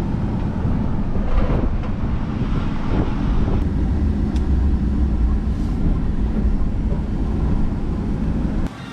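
A vehicle driving: a steady low rumble of engine and road noise that cuts off abruptly just before the end.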